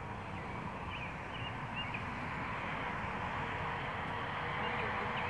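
Outdoor ambience: a steady rushing noise that slowly grows louder, with faint bird chirps about a second in and again near the end.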